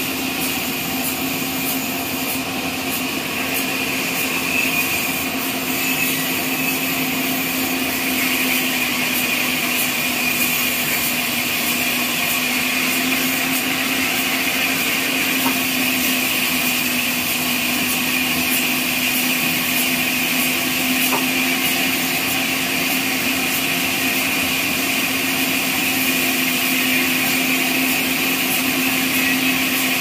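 Horizontal band sawmill running steadily: a constant machine hum with a steady high whine above it, growing slightly louder a few seconds in.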